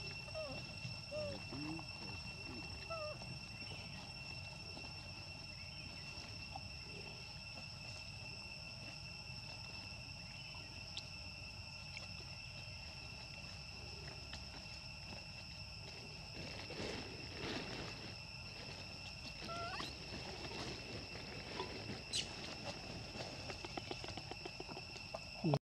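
A steady high-pitched insect drone, with a few short rising squeaks from young macaques and light rustling in dry leaves.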